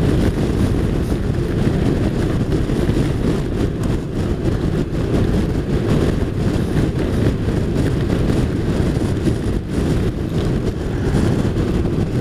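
Steady wind rush on the microphone over the engine and road noise of a touring motorcycle cruising at a steady, moderate speed.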